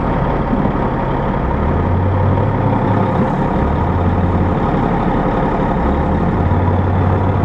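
Heavy diesel engine of a loaded log truck running hard as the truck is worked out of mud where it was stuck. The deep drone swells about a second and a half in and again near the end.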